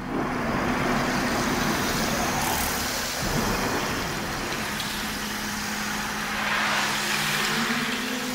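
Recorded wind wand (bull-roarer) whirring in swelling whooshes, a low steady hum joining about five seconds in: the sound-effect opening of a percussion track.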